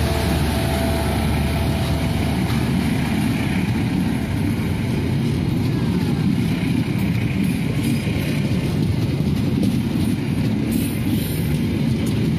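A long passenger train rolls past close by: a steady rumble and clatter of its coaches' wheels on the rails.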